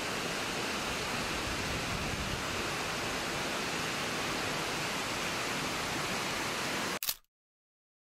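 Waterfall pouring into a plunge pool: a steady rush of falling water that cuts off abruptly with a short click about seven seconds in.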